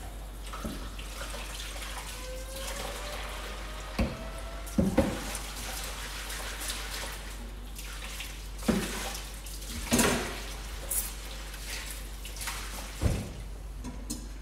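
Water running from a tap into a sink, with a few sharp knocks and clatters as things are rinsed and handled in it.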